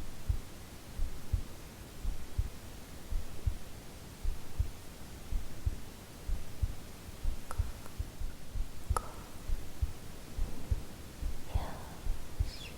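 A woman's real heartbeat, recorded close up: steady low double thumps, about one beat a second.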